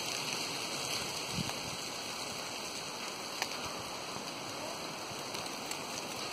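Steady rushing wind noise outdoors, with a few faint clicks.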